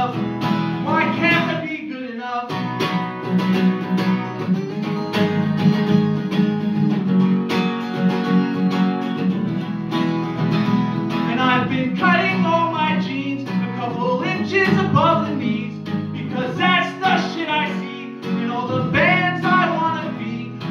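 Live solo song: a man singing to his own strummed acoustic guitar. His voice drops out for several seconds after the opening, leaving the guitar strumming alone, then comes back in for the rest.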